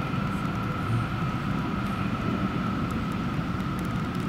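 B-class articulated tram running past amid road traffic: a steady low rumble with a thin, steady high tone over it.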